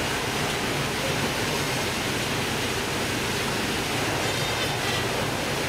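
Fish-processing line running: a steady rushing noise of machinery and conveyor belts, level throughout.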